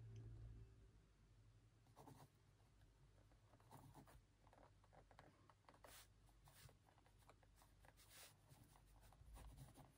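Faint scratching of a pen writing on notebook paper, in short irregular strokes that begin about two seconds in.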